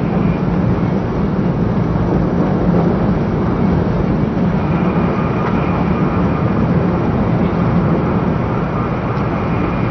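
Steady running noise of a 500 series Shinkansen at high speed, heard inside the passenger car: a deep, even rumble with a hiss above it.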